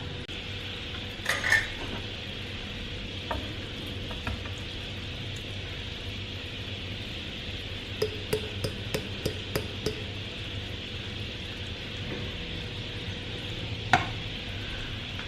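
Leftover food heating in a pan on the stove, sizzling steadily, with a utensil clicking against the pan several times in quick succession partway through and one sharp clink near the end.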